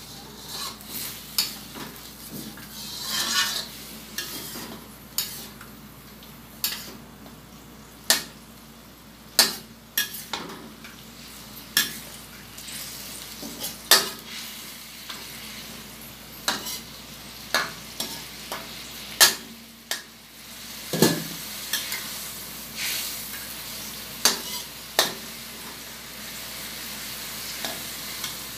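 A metal spatula scraping and clacking against a steel wok as chicken pieces are stirred, in sharp, irregular knocks every second or two. Under it, the chicken sizzles steadily in the pan.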